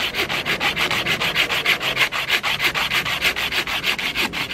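Folding pruning saw cutting through a dead spruce limb close to the trunk, in quick, even back-and-forth strokes.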